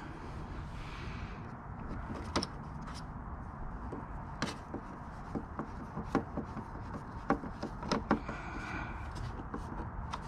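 Irregular light clicks and knocks of a screwdriver and metal bracket against a hard plastic motorcycle trim panel as a screw is worked in by hand, over a steady background hiss.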